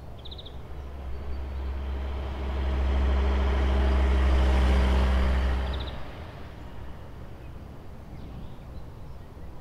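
A car driving past on a road: a low engine and tyre hum swells over the first few seconds, holds, then falls away about six seconds in.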